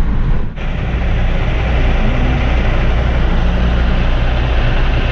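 Wind and road noise inside a moving car with the windows open: a steady rush over a low rumble, dipping briefly about half a second in.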